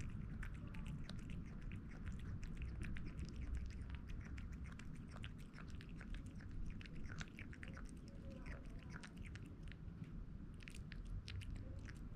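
Kitten eating canned wet cat food: quick, irregular wet smacks and clicks of chewing and lapping, over a steady low rumble.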